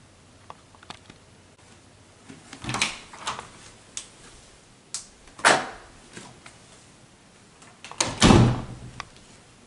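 Residential elevator's folding metal scissor gate and door being worked by hand: a few light clicks, then rattling, sliding swishes around three and five and a half seconds in. A heavier bang of the door or gate shutting comes about eight seconds in and is the loudest sound.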